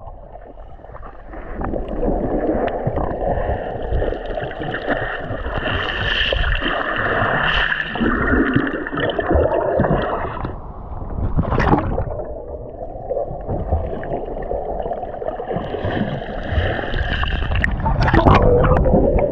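Water sloshing and gurgling against a camera held at the surface, muffled whenever it dips under, with a swimmer's splashing strokes. A sharp splash comes about two-thirds of the way through, and louder splashes near the end.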